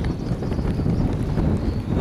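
Strong wind buffeting the microphone: a loud, steady low rumble. A faint thin high whine wavers through it and fades near the end.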